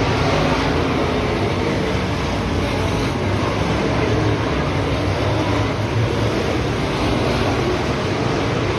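Several dirt-track race cars' engines running at speed around the track, heard from the grandstand as one steady, dense wash of engine noise with no single car standing out.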